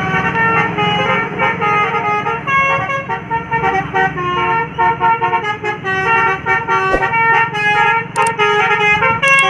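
Bus telolet horn, a Basuri multi-tone air horn, playing a quick melody of changing notes over a steady low drone.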